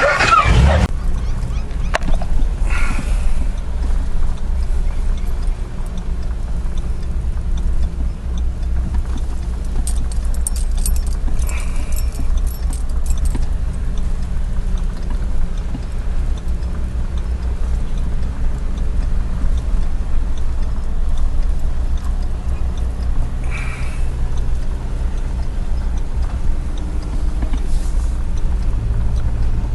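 Vehicle on the move: a steady low rumble with a few brief rattles over it.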